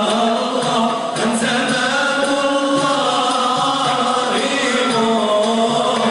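Male vocal ensemble chanting a Moroccan Sufi madih (praise song for the Prophet) in unison, drawing out long held notes that glide ornamentally from one pitch to the next.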